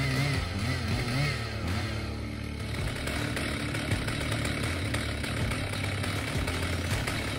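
A large chainsaw running under load, its engine pitch wavering up and down for the first couple of seconds, then steadier.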